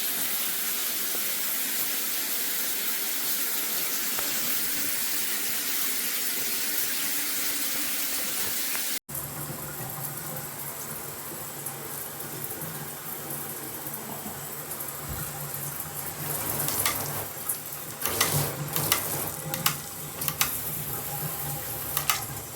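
Filtered handheld shower head spraying water in a steady hiss. About nine seconds in the sound breaks off briefly and resumes as a lower, fuller water flow, with a few knocks and clicks in the second half.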